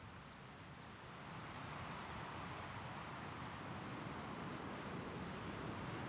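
Steady wind rushing across open country, swelling slightly about a second in, with a few faint, short bird chirps near the start and again midway.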